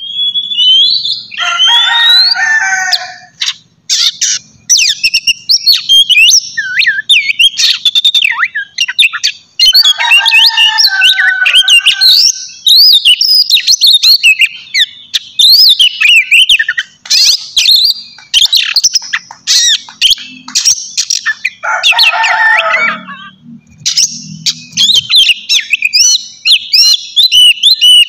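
Oriental magpie-robin (kacer) singing a loud, fast, varied song of whistles, trills and chirps, broken three times by lower, harsher chattering calls.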